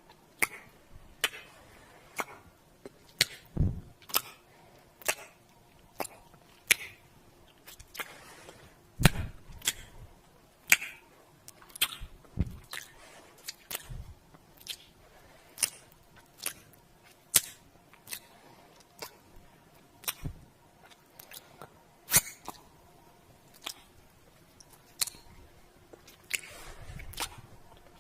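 Repeated kissing sounds made with the lips: short, wet smacks about one or two a second at an uneven pace, a few of them heavier than the rest.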